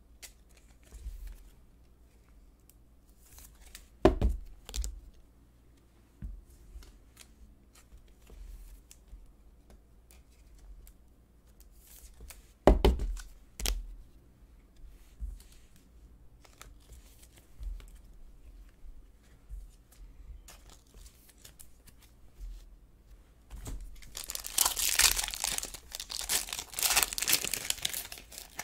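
Trading cards in plastic sleeves being handled and set on a table, with scattered clicks and two sharp taps. Near the end, a foil trading-card pack wrapper crinkles loudly as it is torn open.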